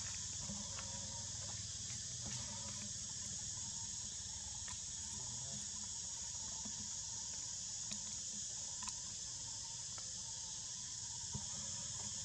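Steady high-pitched drone of a forest insect chorus, with a low rumble underneath and a few faint clicks.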